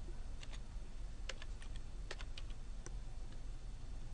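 Computer keyboard keys clicking in an irregular run of about a dozen keystrokes, over a low steady hum.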